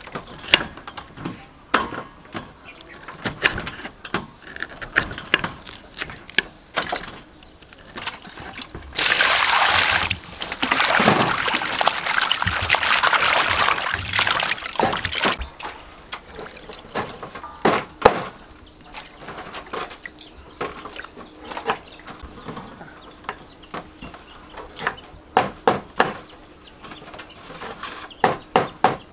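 Knife chopping on a wooden cutting board, irregular sharp taps. About nine seconds in, water splashes loudly for about six seconds as lemongrass, chilies and lime leaves drop into a bowl of water, then the chopping taps resume.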